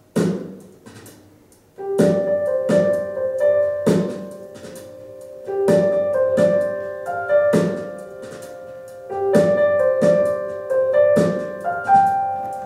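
Recorded music played through a hi-fi system's floor-standing loudspeakers in a bare, live-sounding room. A steady beat of drum hits runs throughout, and piano chords come in about two seconds in.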